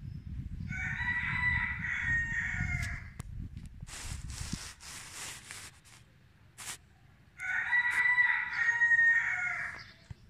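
Rooster crowing twice, each crow about two and a half seconds long and the second coming about six and a half seconds after the first. A low rumble runs under the first crow, and a brief hiss comes between the two.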